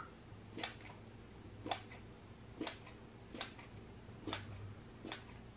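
Six faint, sharp clicks about a second apart over a low steady hum.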